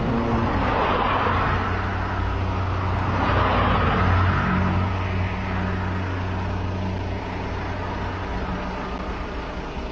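Road vehicle noise: a steady engine hum with two swells of passing-traffic noise, the louder one about three to five seconds in. The hum fades about seven seconds in.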